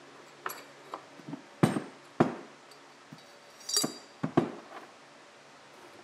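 Small pieces of steel cut from an ice skate blade, and a square steel tube canister, clinking and knocking as they are handled and set down on a wooden workbench. About ten knocks, the two loudest around two seconds in, with one ringing metal clink near four seconds in.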